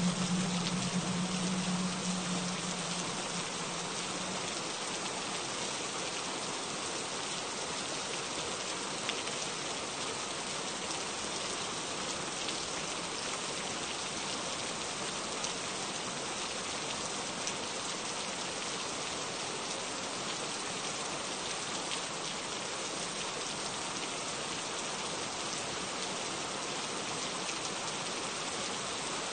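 Steady rain, an even hiss of falling drops with no let-up. A low hum fades out over the first few seconds.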